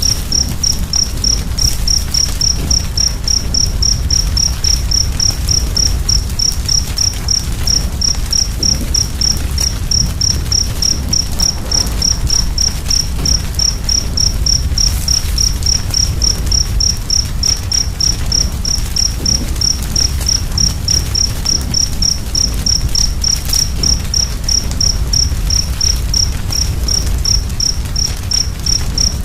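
Wood fire burning with a dense low rumble and faint scattered crackles, overlaid by a steady high-pitched chirp repeating evenly about three times a second.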